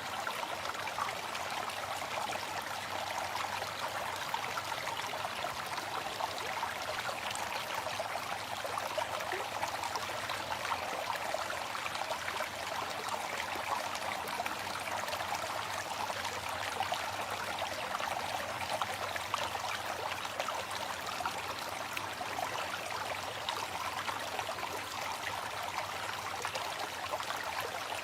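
Waterfall: water falling and splashing in a steady, unbroken rush with a fine trickling texture.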